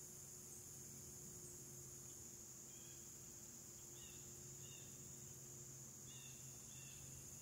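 Faint woodland ambience: a steady high-pitched insect drone throughout, with a few short bird chirps, some in pairs, in the second half.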